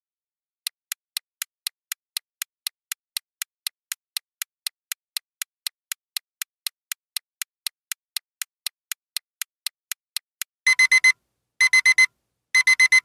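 Countdown timer sound effect: a clock ticking steadily, about four ticks a second, for about ten seconds, then an alarm ringing in three loud bursts about a second apart as time runs out.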